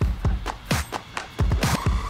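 Background electronic music with a steady beat of deep kick drums that drop in pitch, and sharp snare hits.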